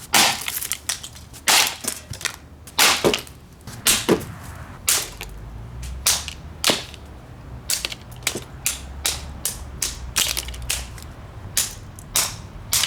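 Cheap, brittle Windmere desk fan being smashed, with a long run of sharp blows, plastic cracking and parts breaking. The blows are heaviest in the first few seconds and then come quicker and lighter. A steady low hum comes in about five seconds in under the blows.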